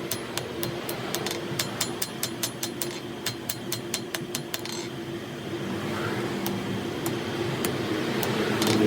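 Blacksmith's hammer striking metal in a quick, even rhythm of about three to four blows a second, thinning to scattered blows about halfway through, over a steady hum. An engine grows louder near the end.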